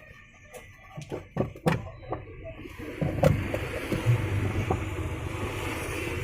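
Clicks and knocks of parts being handled on a washing machine's gearbox, then a steady low whirring from about three seconds in.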